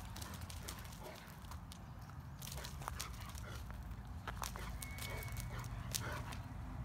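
Rottweiler's small sounds: scattered clicks and knocks, with a brief high whine about five seconds in.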